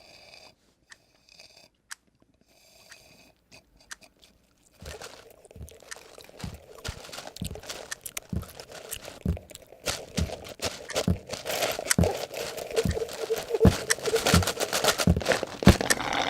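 Layered Foley sound effects from a short film: faint scattered small sounds at first, then from about five seconds in a thickening clutter of crunching and chewing-like noises with repeated knocks, growing louder and denser toward the end.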